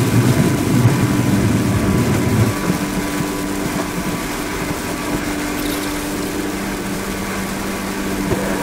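Road noise inside a moving car on a highway: steady engine and tyre noise. A heavier low rumble fades about two and a half seconds in, leaving a steady hum.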